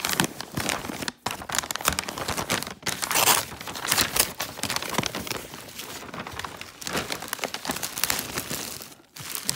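Gift wrapping paper being torn open and crumpled by hand, a dense crackling rustle with short pauses about a second in and near the end. It is joined by the crinkle of the clear plastic wrap sealing the gift inside.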